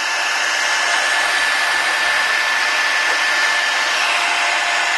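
Hot-air blower running steadily, a rushing hiss with a thin high whine held through it, heating an iPhone 5's home-button and power flex connectors to soften the glue holding them.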